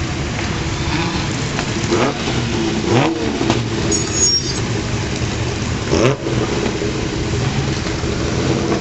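Historic racing car engines running at low speed in the paddock, with the throttle blipped so the revs rise sharply about two, three and six seconds in.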